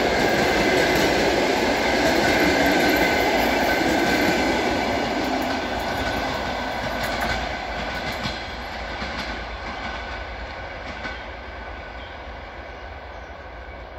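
Passenger coaches of a train rolling past on the rails, a steady rumble of wheel and rail noise. It fades away after the last coach goes by about halfway through and the train moves off.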